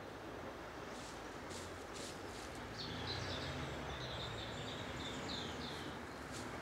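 Small birds chirping in a run of short calls over a steady outdoor hiss, with a faint low engine rumble underneath.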